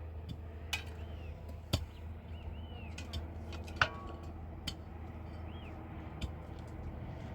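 Scattered sharp clicks and knocks, two of them louder, about two seconds apart, over a steady low hum, with a few faint high chirps.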